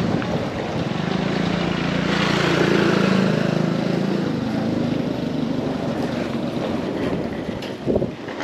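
Street noise: a small motorbike engine runs close by and fades after about four seconds, over the steady rattle of suitcase wheels rolling on concrete.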